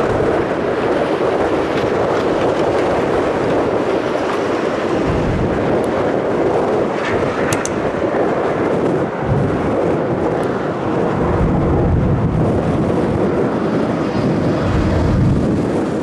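A jet airliner's engines give a steady, loud roar, mixed with strong gusty wind buffeting the microphone, which thumps in the low end several times.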